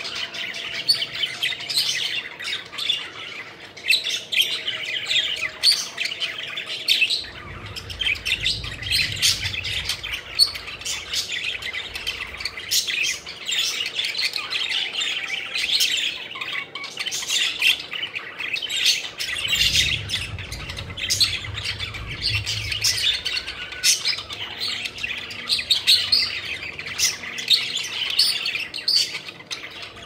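A flock of budgerigars chattering continuously, many short chirps overlapping without a break. A low rumble comes and goes twice underneath.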